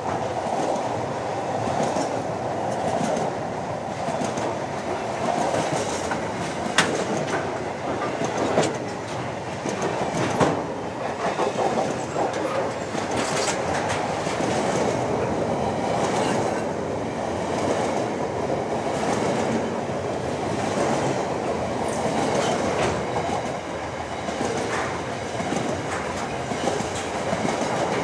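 Container wagons of a long freight train rolling past: a steady rumble and clatter of steel wheels on the rails, with a few sharp clicks as the wheels pass over rail joints.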